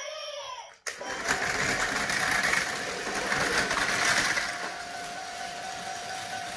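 Tomy Plarail toy trains running on plastic track, one of them an E6 Komachi fitted with an Atomic-Tuned 2 motor. Their small electric motors and gears make a steady whirr, with a thin steady whine under it. The sound jumps louder about a second in.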